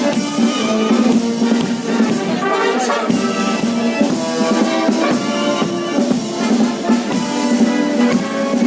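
Music with a melody of changing pitched notes played on instruments.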